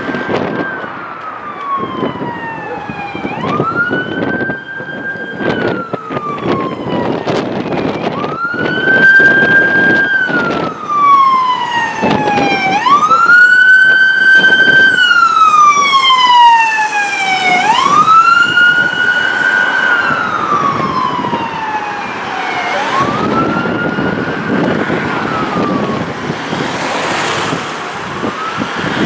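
Ambulance siren on a wail: each cycle jumps up quickly, holds briefly, then slides slowly down, repeating about every five seconds. It is loudest around the middle as the ambulance passes, then fades a little as it drives away, with street traffic underneath.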